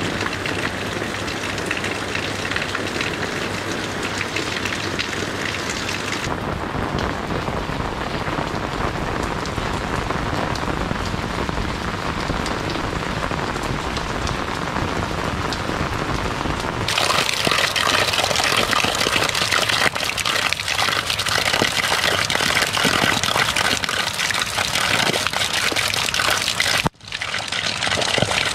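Steady rain falling, with runoff water splashing and trickling. About seventeen seconds in it becomes louder and brighter. Near the end it cuts out briefly, then water from a small pipe spills over rocks into a puddle.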